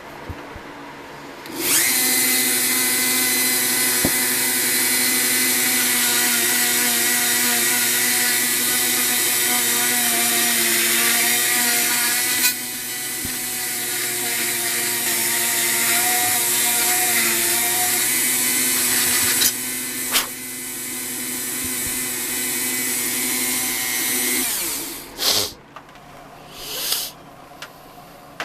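An electric power tool runs steadily on the cast iron nutcracker, its motor holding one pitch, and stops after about twenty seconds. A few short scraping and knocking sounds follow near the end.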